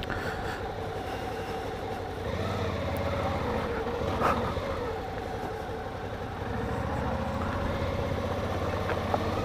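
Suzuki V-Strom 650's V-twin engine running at low speed, its note rising and falling gently as the bike rolls slowly along, with a short tap a little over four seconds in.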